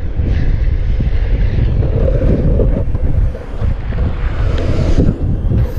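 Wind buffeting the microphone of an action camera moving along a street: a loud, uneven low rumble that dips briefly about three and a half seconds in.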